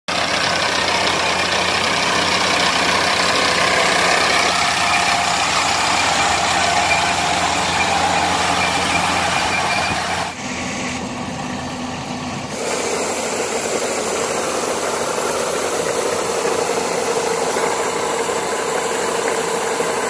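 Kubota crawler combine harvester running as it cuts and threshes rice, a steady mechanical din of engine and machinery. The sound changes abruptly twice, about ten seconds in and again two seconds later.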